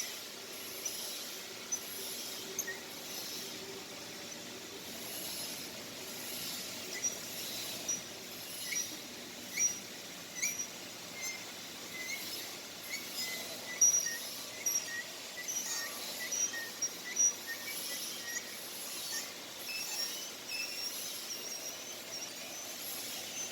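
Birds chirping, with many short calls repeating throughout over a steady outdoor background hiss; no machine running.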